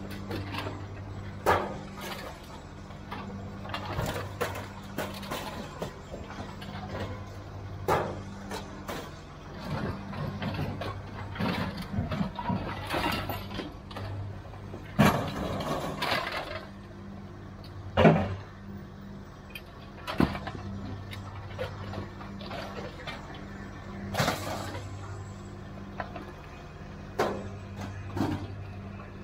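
Pieces of scrap metal clanking and clattering as they are thrown out of a trailer onto a pile, irregular crashes every few seconds, over the steady hum of an idling engine.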